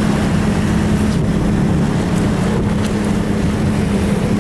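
Motorboat engine running at a steady, even speed while towing an inflatable tube, with wind noise on the microphone and water rushing past.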